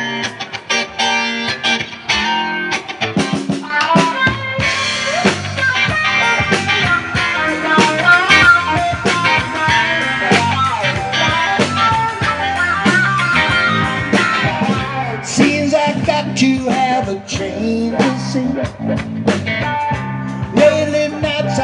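Live band playing an instrumental intro in a blues-rock style: guitar over bass and drum kit, with a steady beat.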